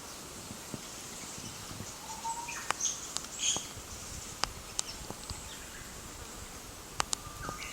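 Faint calls of a male Japanese paradise flycatcher: a short level whistle about two seconds in and high chirping notes around three seconds, over a steady high insect hum, with a few sharp clicks.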